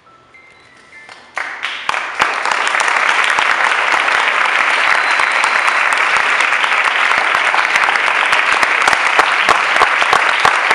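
Audience applauding: a crowd of hands clapping, starting suddenly about a second and a half in and continuing loud and dense at the end of a performance.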